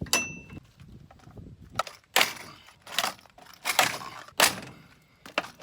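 Hammer blows on steel, about seven sharp, irregular strikes, the first ringing briefly. They come from working the rivets that hold the plastic wear strips on a combine head.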